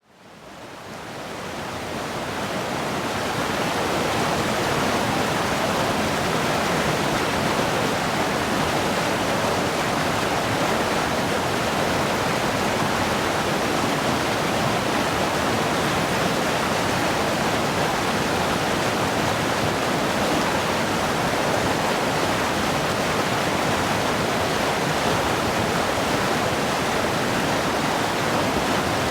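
River water rushing steadily, a dense, even noise of fast-flowing water that fades in over the first few seconds and then holds level.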